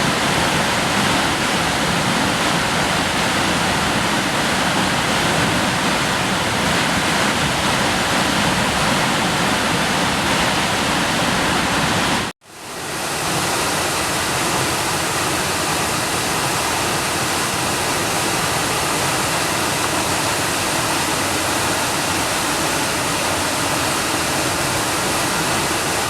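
Waterfall rushing, a steady, loud wash of falling water. About halfway through it cuts out abruptly and fades straight back in at a similar level, with a little less low rumble afterwards.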